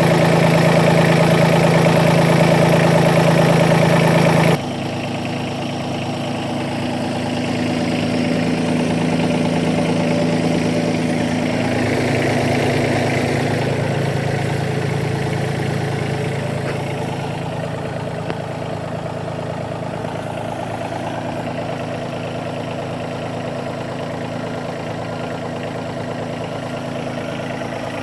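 Bobcat B250 compact loader backhoe's engine running, louder for the first four or so seconds, then dropping suddenly to a steady idle.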